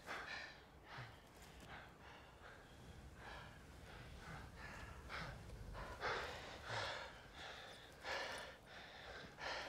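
Men breathing heavily: a string of audible breaths and gasps, roughly one every second.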